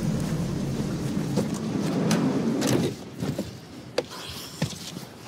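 A steady vehicle and street rumble for about three seconds, then it drops away and a handful of sharp knocks and clicks follow, as of a van's door and fittings being handled.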